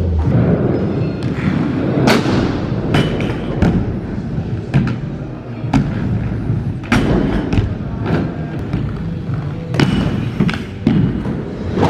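Gawds aggressive inline skates rolling over skatepark ramps and concrete: a continuous low rumble of the wheels, broken by repeated sharp thumps and clacks from landings and from the frames striking and grinding a metal rail.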